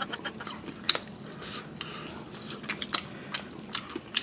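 Eating sounds close to the microphone: scattered light clicks of utensils against a bowl or plate, with chewing.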